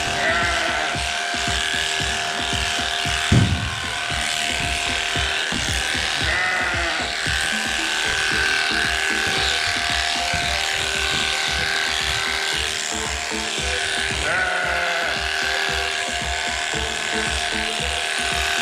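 Background music, with a sheep bleating a few times and a single sharp thump about three seconds in.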